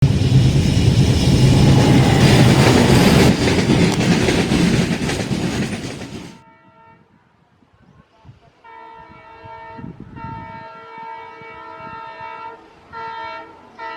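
A train running close by, a loud rush and clatter of wheels on rail that cuts off abruptly about six seconds in. From about nine seconds the locomotive's horn sounds one long continuous blast, then two short toots near the end.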